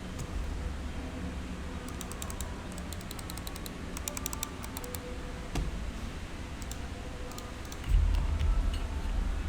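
Typing on an IK85 Plus mechanical keyboard with Outemu Lime silent switches and AKKO ASA keycaps: soft, quick key clicks in short bursts. Under them is a steady low rumble that gets louder about eight seconds in.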